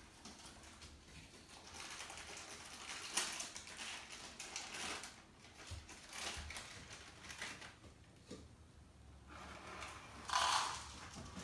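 Dry cat food rattling in a few short bursts, the loudest near the end.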